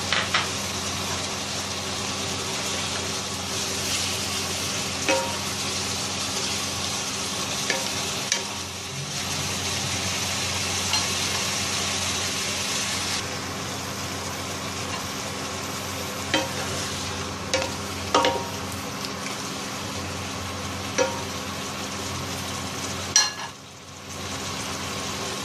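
Catfish pieces with krachai and green peppercorns sizzling in a wok while a spatula stirs them, scraping and clacking against the pan now and then. The sizzle eases about halfway through, over a steady low hum.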